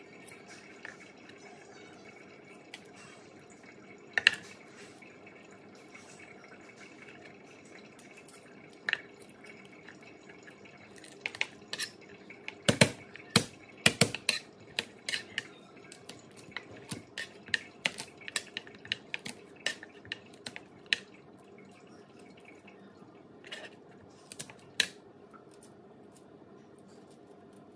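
A chef's knife knocks and taps on a plastic cutting board as garlic cloves are crushed and peeled: scattered sharp clicks, with a run of louder knocks about halfway through, over a faint steady hum.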